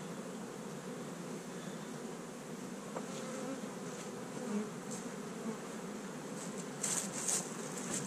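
Honey bees buzzing in flight, a steady hum with single bees droning close past now and then; the bees are worked up after their hives were moved. A few faint clicks come near the end.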